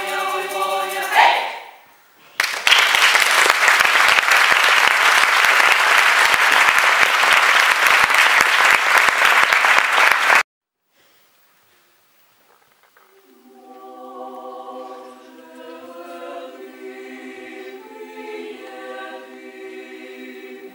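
Female chamber choir singing a cappella ends a chord about a second in. Audience applause follows for about eight seconds and cuts off suddenly. After a short silence the choir begins softly again, singing a cappella.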